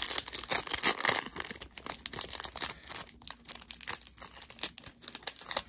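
Foil wrapper of a trading card pack being torn open and crinkled: a dense run of crackles for about three seconds, then sparser crinkles.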